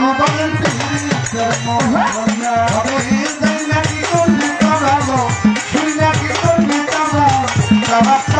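Live Baul folk music: a fast, busy percussion rhythm of drum strokes that bend in pitch and rattling shakers, with harmonium and a male voice singing over it.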